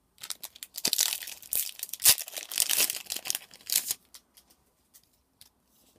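Foil wrapper of a Magic: The Gathering booster pack being torn open and crinkled for about four seconds, followed by a few faint rustles of the cards.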